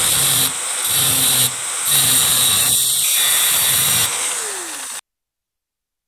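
Angle grinder with a cutting disc running and cutting the plastic ring of a washing machine gearbox flange, its noise dropping and swelling several times. About four seconds in it is switched off and its whine falls as the disc spins down, until the sound stops abruptly.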